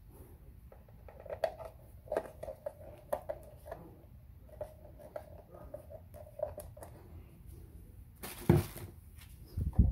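Hand screwdriver turning the lid screws into a PVC electrical junction box: a run of small, irregular clicks and squeaks. Near the end come two louder knocks.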